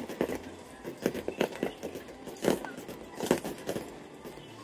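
Aerial fireworks bursting: irregular bangs and crackles, the loudest about one, two and a half and three and a third seconds in.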